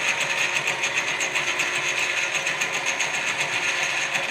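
Centre lathe running with a steady whirring hum and a fast, even mechanical pulsing from its drive and gears.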